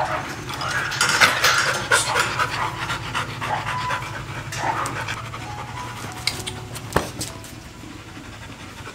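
A dog panting in a quick, even rhythm, with scattered light clicks and one sharp knock about seven seconds in.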